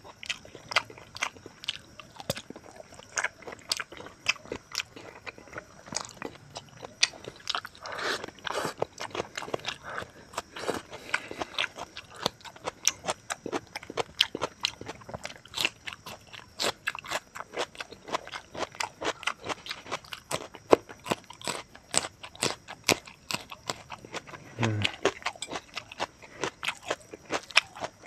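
Close-miked chewing and lip smacking of pork rib curry with rice eaten by hand: a steady run of wet clicks, several a second, with some crunching.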